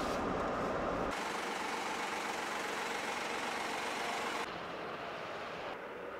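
Road noise inside a moving kei camper van's cab: a steady low rumble with hiss, cut off abruptly about a second in. It gives way to a steady outdoor hiss without the rumble, which drops in level twice toward the end.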